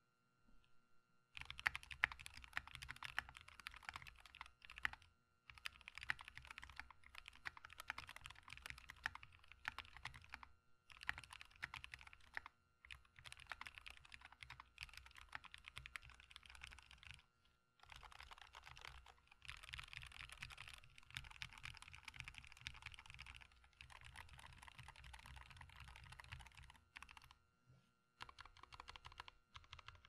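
Typing on a custom 65% mechanical keyboard, a RAMA M65-A, fitted with Tealios V2 linear switches and Zeal gold stabilizers, all lubed with Krytox 205g0. The keystrokes come in quick runs of a few seconds, with short pauses between them.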